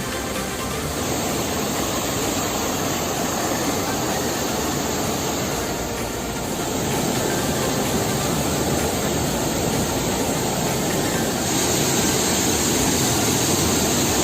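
Waterfall rushing: a steady, even noise of falling water that gets slightly louder a couple of times.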